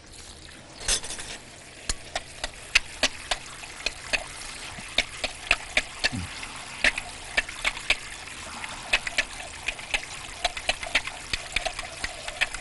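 Starch being stirred into water with a spoon, the spoon clicking against the side of its container two or three times a second in an uneven rhythm.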